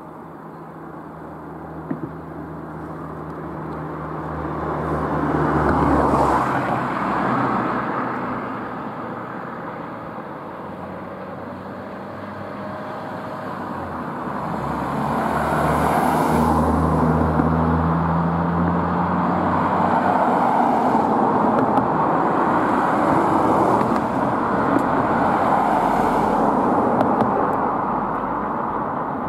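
Distant steam locomotive working a train out of sight, a continuous rushing exhaust with a low hum under it. It swells about six seconds in, eases, then grows louder again from about fifteen seconds on.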